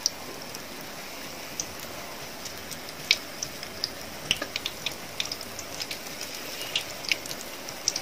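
Pakoda batter fritters deep-frying in hot oil in a kadai: a steady sizzle with sharp crackles and pops, which come more often from about three seconds in.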